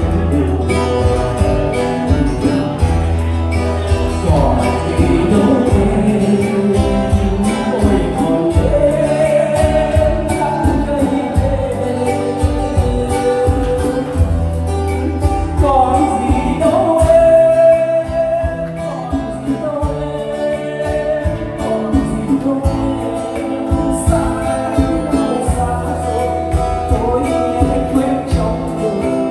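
Live acoustic band music through a PA system: a singer over strummed acoustic guitars with a steady low bass pulse.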